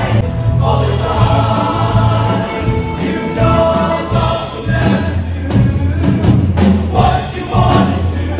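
A show choir singing over a band, with a sustained bass line under the voices.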